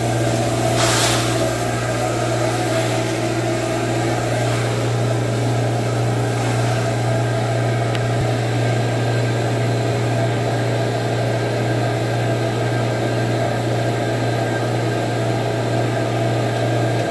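Carpet shampoo machine's motor running with a steady, unchanging hum.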